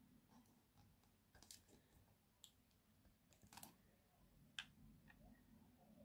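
Near silence with a few faint, short clicks of small plastic toy parts being handled as the miniature coffee machine is squeezed and lifted.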